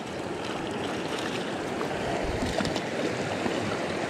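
Small stream's water rushing steadily, with a few faint ticks about two and a half seconds in.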